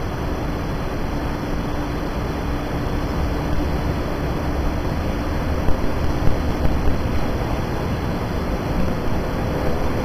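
Steady rumble and hiss of trains on the line as a locomotive-hauled passenger train runs past on the far tracks, with a faint steady hum.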